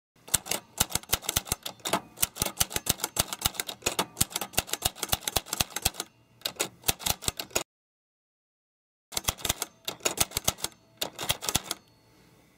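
Typewriter keys clacking in a fast run of key strikes for about seven seconds, then silence for a second and a half, then a shorter run of about three seconds.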